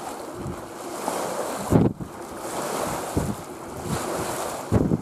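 Wind buffeting the microphone in irregular gusts, the strongest a little under two seconds in and another near the end, over a steady rush of wind and choppy reservoir water lapping at the dam.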